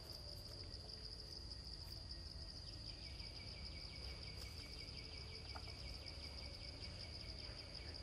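Forest insects calling: one steady, high-pitched insect drone throughout, joined about three seconds in by a second, lower insect call that pulses rapidly and stops near the end, over a low steady rumble.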